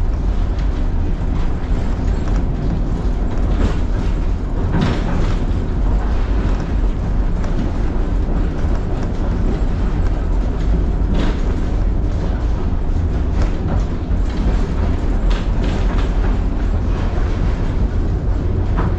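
Tram running along its rails, heard from inside the car: a steady low rumble with scattered knocks and rattles from the wheels on the track.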